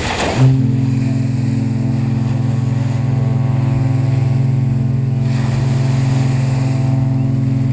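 A cruise ship's horn sounding one long, low blast that starts about half a second in and stops just before the end.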